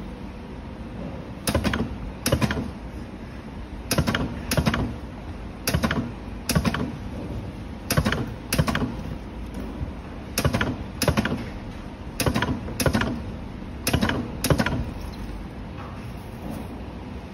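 Pneumatic battery spot welder working along a pack of 18650 cells, welding the metal connector strip onto the cell ends: each cycle is a pair of sharp clacks about two-thirds of a second apart, repeating about every two seconds, seven times, then stopping.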